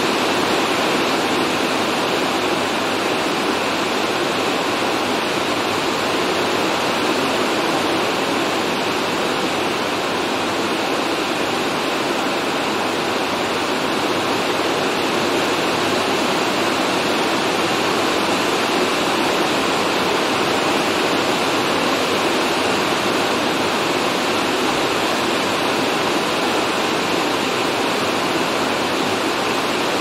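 Rain falling steadily on a roof, heard from inside the building: an even, unbroken hiss with no single drops or gusts standing out.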